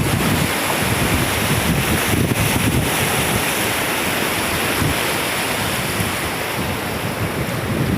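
Floodwater rushing in a loud, steady stream, with wind buffeting the microphone.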